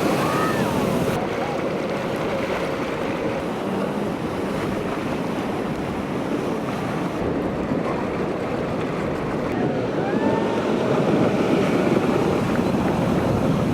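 Ocean surf and wind rushing steadily, with wind buffeting the microphone. A few faint, brief sliding calls come near the start and again around ten seconds in.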